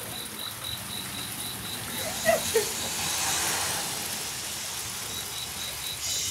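A cricket chirping steadily, about three high chirps a second. Partway through, a swelling hiss rises and hides the chirping for a few seconds before the chirps come back.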